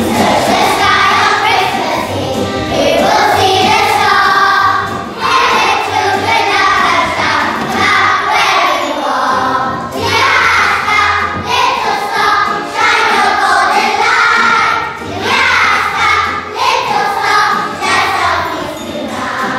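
A group of young children singing a song together in sung phrases, with instrumental accompaniment.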